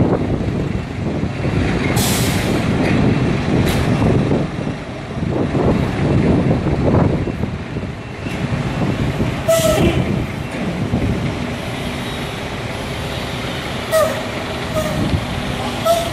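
Heavy diesel engine of a truck-mounted crane running steadily while it holds a container. Several short hisses of released air cut through it, about 2, 4 and 10 seconds in, and a few brief high squeaks come later.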